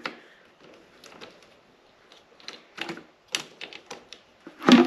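Scattered light clicks and taps of jump-starter clamps being worked onto the terminals of a small motorbike battery, a fiddly job.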